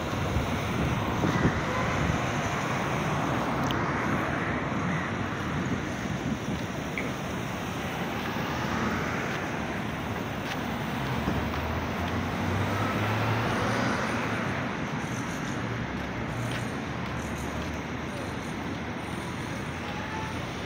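Road traffic on a wide city street: cars passing in a steady wash of engine and tyre noise, with a low engine rumble swelling a little about two-thirds of the way through.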